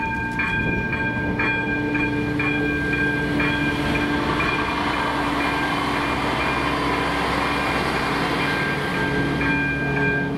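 Electronic ZV-02 level-crossing bell ringing about twice a second while a two-car diesel railcar runs over the crossing. The train's engine and wheel noise fill the middle and partly cover the bell, which stands out again near the end.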